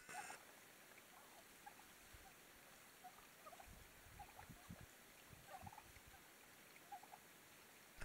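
Wild turkeys making faint, scattered soft clucks while feeding, with a brief sharp sound at the very start.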